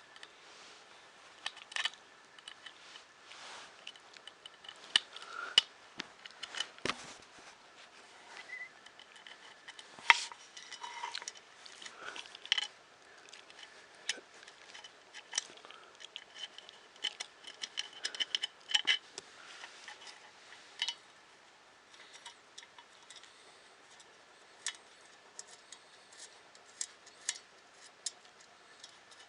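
Small metal hardware being worked by hand: scattered clicks and light metallic clinks of a hand tool and small bolts as two bolts are undone on a 3D printer kit part, busiest in the middle and sparser near the end.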